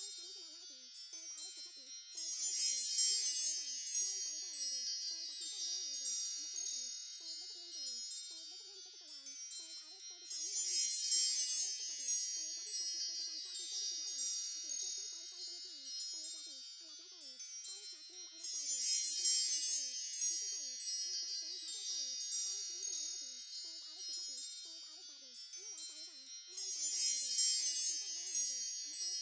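Recorded wind chimes tinkling in a repeating loop that swells about every eight seconds, with faint, low wavering tones beneath.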